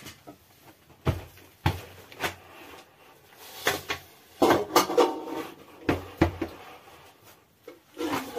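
Large aluminium bowls being handled on the floor: a series of separate knocks and clanks, bunched closer together in the middle.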